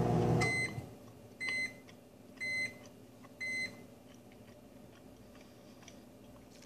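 Microwave oven's running hum cuts off about half a second in, followed by four short high beeps about a second apart: the end-of-cycle signal that heating has finished.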